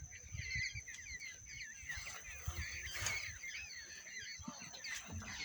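A large flock of parrots calling, many short wavering squawks overlapping into a continuous chatter.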